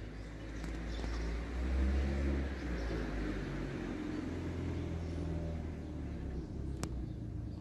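Low rumble of a passing motor vehicle, swelling about two seconds in and staying up, with one sharp click near the end.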